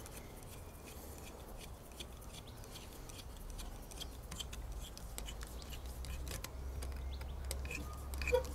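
Faint, irregular small clicks and taps of a screwdriver and a fuel filter with its rubber hose being handled at a motorcycle's fuel-tank opening, with a sharper click near the end, over a steady low rumble.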